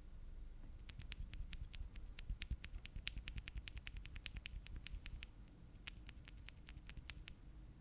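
Typing on a mechanical keyboard fitted with Akko Starfish linear switches: a quick, irregular run of light key clacks, starting about a second in and stopping near the end.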